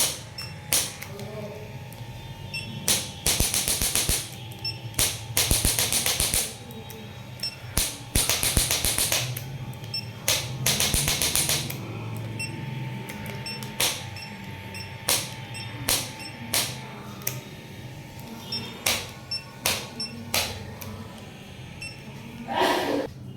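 Four bursts of rapid tapping, each lasting a little over a second, with single sharp knocks and clicks scattered between them.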